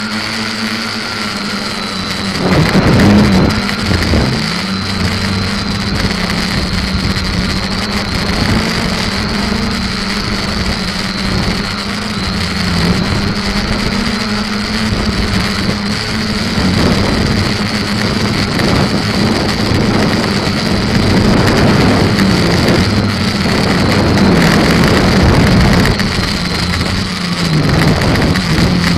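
SK450 quadcopter's brushless electric motors and propellers buzzing steadily, their pitch wavering a little with throttle, heard through the onboard camera's microphone. Bursts of rushing wind noise come and go, loudest about three seconds in.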